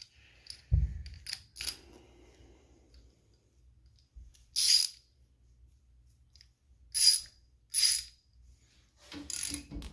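A socket ratchet turning in short bursts with metallic clicks and a low thump, backing bolts off a vintage Scotts reel mower. There are four separate bursts of ratcheting, each under half a second long.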